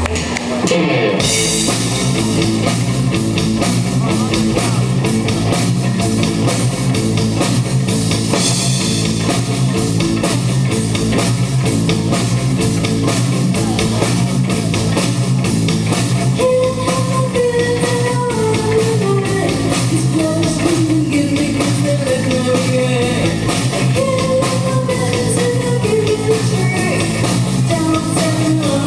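Live rock band playing: electric guitars over a drum kit, with a steady beat. About halfway through, a woman's singing voice comes in over the band.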